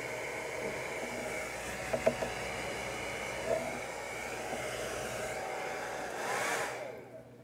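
Handheld blow dryer blowing steadily, with a couple of light clicks; it swells briefly, then fades out and stops near the end.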